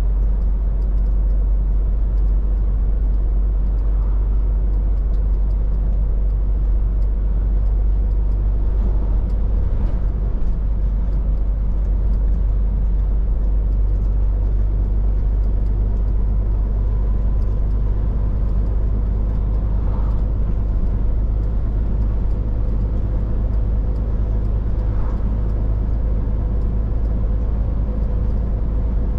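Scania R450 lorry's 13-litre six-cylinder diesel engine and road noise, a steady low drone while driving at an even pace.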